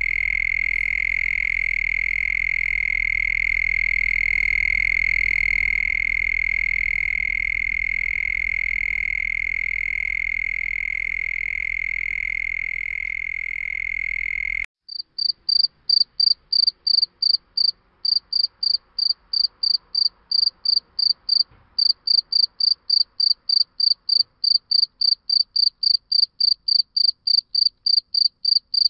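Crickets: a steady, unbroken trill for about the first half. It cuts off abruptly and gives way to a higher-pitched cricket chirping in evenly spaced pulses, about three a second.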